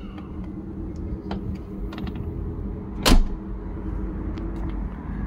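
A steady low rumble with a faint steady hum, and one loud sharp knock about three seconds in, with a few faint clicks.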